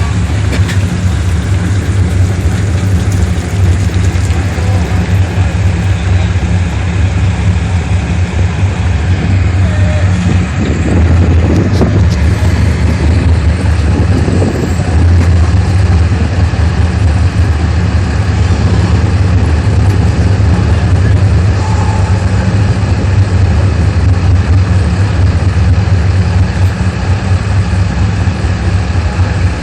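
An engine running steadily at low revs, with a little more noise from about a third of the way in to halfway.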